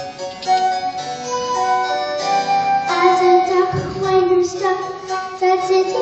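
Instrumental accompaniment to a musical-theatre song, with a young girl's singing voice carrying the melody from about halfway through.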